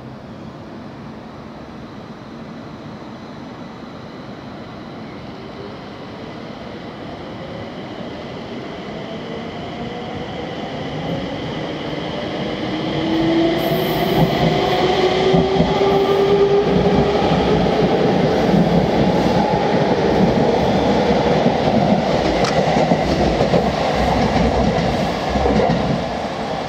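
JR East 701 series electric train running close by. A motor whine rises in pitch over the first half while the rumble of the wheels on the rails grows much louder, then stays loud.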